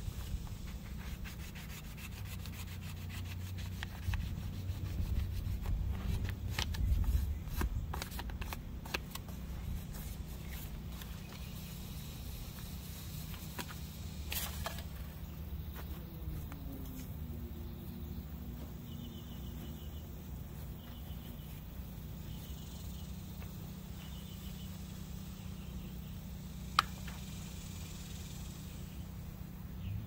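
Cloth and hands rubbing on a brass steam whistle as it is polished, with scattered handling clicks and knocks and one sharp click near the end, over a steady low hum.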